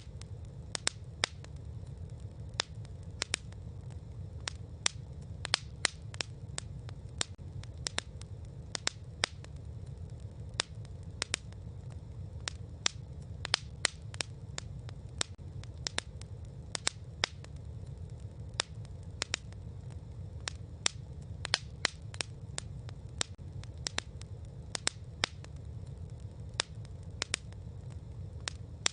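Campfire crackling: sharp pops and snaps, a few every second at irregular intervals, over a steady low rumble of the burning wood. The audio is AI-generated by Veo.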